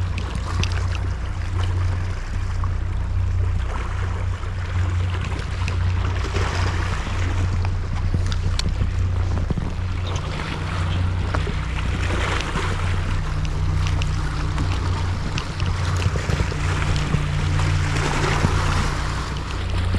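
A boat's engine running steadily with a low hum, wind and waves around it.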